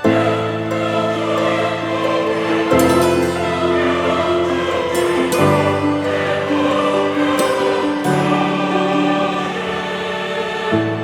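Background music with choir-like sustained voices and chords changing every few seconds.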